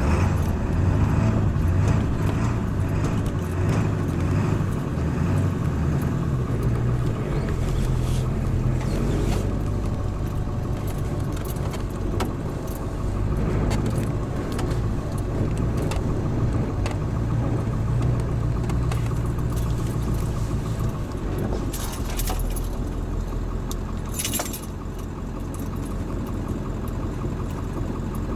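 A vehicle driving slowly through snow, heard from on board: the engine runs steadily under a light, continuous rattle, and the engine sound eases off slightly near the end.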